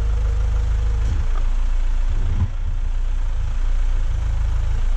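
Truck engine of a basket crane running steadily with a low drone; its note shifts about a second in and dips briefly near the middle.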